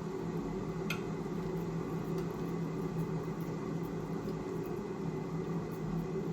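Steady electric motor hum of a running appliance, with a single light click about a second in.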